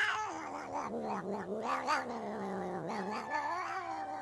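Black domestic cat giving one long, drawn-out yowl that wavers up and down in pitch.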